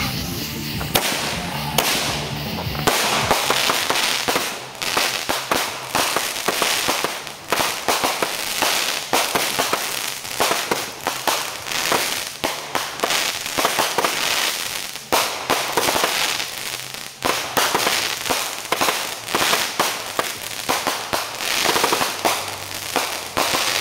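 Two consumer fireworks, Urban Warfare and Close Combat, firing together: a dense, unbroken stream of sharp bangs and crackles that keeps going for over twenty seconds.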